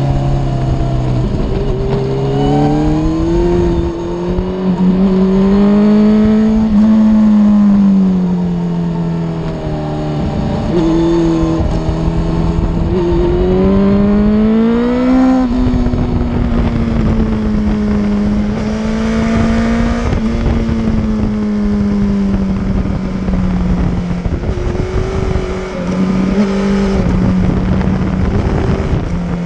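Sport motorcycle engine running hard through a series of curves, its pitch rising and falling several times as the throttle opens and closes, with wind rushing past.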